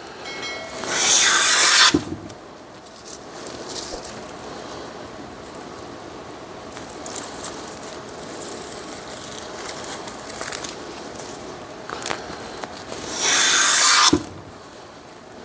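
Stanley Bailey No. 5 jack plane taking two shaving strokes along the edge of a 2x6 board, each lasting about a second, one near the start and one near the end. Quieter handling sounds with a few small clicks lie between them.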